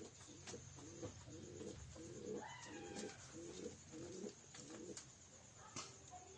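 Domestic pigeons cooing, a run of low coos about two to three a second, faint, with a few light clicks and a brief higher gliding call about two and a half seconds in.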